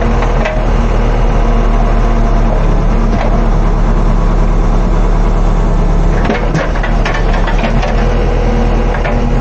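JCB backhoe loader's diesel engine running steadily, heard from inside the cab while the backhoe arm is worked from the control levers. A cluster of sharp clicks and knocks comes about six seconds in.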